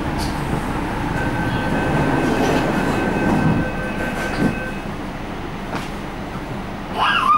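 MTR Ma On Shan Line C-Train with a steady low rumble. A steady two-note electronic tone sounds for a few seconds, then a rising whine near the end as the train begins to move.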